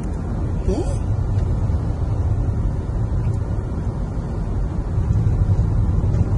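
Steady low road and engine rumble inside a moving car's cabin, with a brief faint squeak about a second in.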